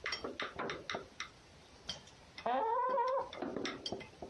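A domestic cat gives one drawn-out meow of under a second, a little past halfway through, among scattered light clicks and taps.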